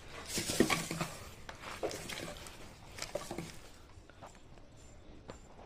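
Rustling and crackling of plastic packets and rubbish being shifted by hand, with scattered light knocks of debris. The sound is busiest in the first second and thins to occasional ticks.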